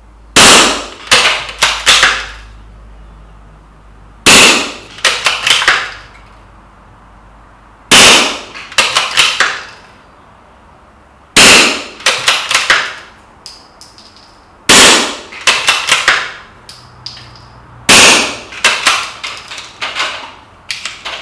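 Six shots from a CZ 452 .22 rimfire bolt-action rifle fitted with a sound moderator, one every three to four seconds. Each report is followed by a quick run of clacks as the bolt is worked to eject the spent case and chamber the next round. The moderator keeps the shots subdued: 'not much to hear'.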